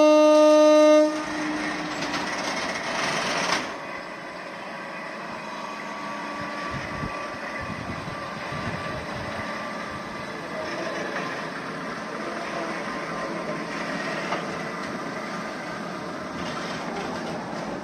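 Kurobe Gorge Railway narrow-gauge train departing: a loud, steady horn blast cuts off about a second in, then a noisier spell of a few seconds gives way to the steady rolling of the train on the rails, with faint thin squeals.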